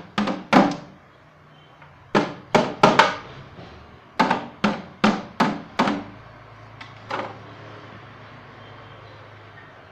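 Empty plastic containers beaten with a small stick like drums: hollow, slightly ringing knocks in quick runs of four or five with short pauses between, and two softer knocks about seven seconds in. A low steady hum runs behind from about six seconds on.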